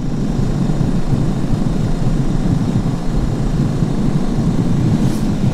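Suzuki DR 650 single-cylinder motorcycle running at road speed, heard mostly as a steady, low rush of wind buffeting the rider's microphone, with the engine drone underneath.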